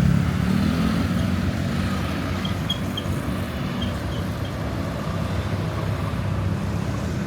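Motor traffic with vehicle engines running: a steady low engine rumble, loudest at the start and easing a little after, with a few faint short high chirps in the middle.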